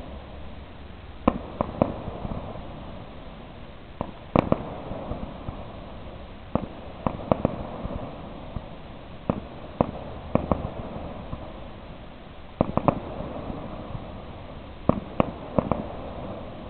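Fireworks display: aerial shells bursting with sharp bangs, often two or three in quick succession, about every two to three seconds, over a steady low rumble.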